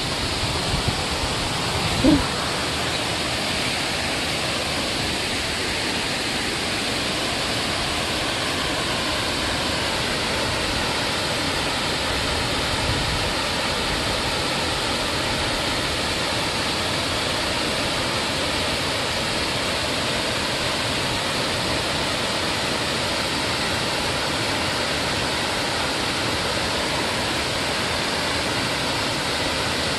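Waterfall rushing, a steady, even roar of falling water. There is one short thump about two seconds in.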